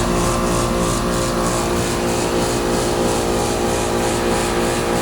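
Outdoor air-conditioning unit running with a steady, loud hum. Its compressor is on but sounds as if it is running without pumping: the high and low side lines are the same temperature and it blows no cold air, so the owner suspects the compressor is failing.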